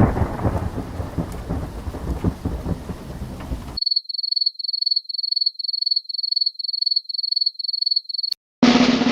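Thunderstorm sound effect, thunder rumbling over rain, cut off abruptly a little under four seconds in. A rapid series of high electronic beeps follows, about three a second. Near the end comes a click, then a drum roll begins.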